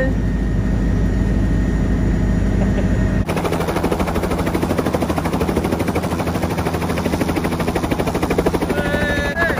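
Helicopter in flight: a steady low drone, then after an abrupt change about three seconds in, the rapid, even chop of the rotor blades.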